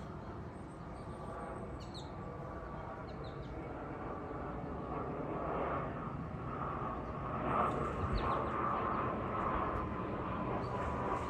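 An aircraft flying over, its engine noise growing steadily louder with a whining tone in the second half. A few faint bird chirps.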